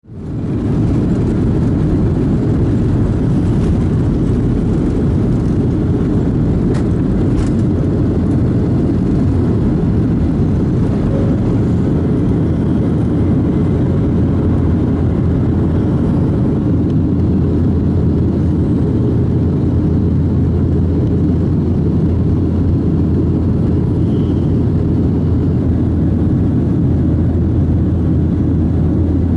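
Boeing 737 jet airliner's engines at takeoff power, heard from inside the cabin during the takeoff and climb-out: a steady, deep rushing noise that fades in at the very start and holds even.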